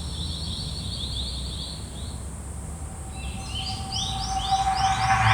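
Rapid series of high bird-like chirps, about five a second. About halfway through, a second, overlapping series of chirps starts, and a rushing noise with a steady tone swells, loudest near the end.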